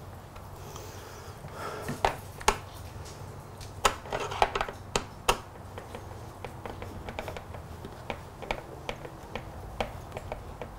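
Scattered sharp clicks and taps of hand tools, screws and plastic parts being handled while a motorcycle is put back together, loudest in a cluster between about two and five seconds in, over a low steady hum.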